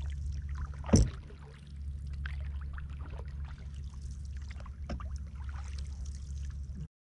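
Canoe paddling heard through a GoPro in its waterproof housing tied to the bow: a steady low rumble with faint paddle splashes and drips. There is a sharp knock on the hull about a second in and a lighter one near five seconds. The sound cuts off suddenly near the end.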